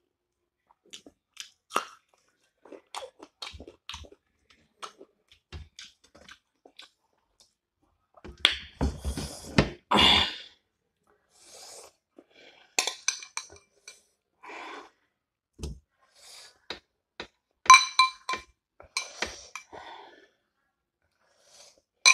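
Close-miked chewing of a mouthful of rice and goat-meat curry eaten by hand, in many short wet mouth noises, with a louder stretch a little before halfway. In the second half a metal spoon clinks against a glass bowl of gravy several times, each clink ringing briefly.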